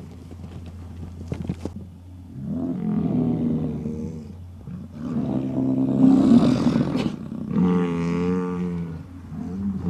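American bison bulls bellowing as they fight: three long, deep roars, the middle one the loudest and roughest. A few faint knocks come in the first two seconds.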